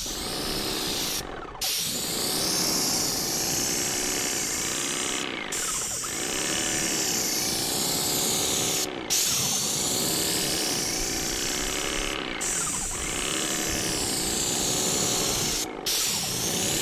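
Airless paint sprayer spraying polyurethane: a loud steady hiss of the spray fan, cut off briefly about five times as the trigger is released between passes, with a lower pulsing tone underneath.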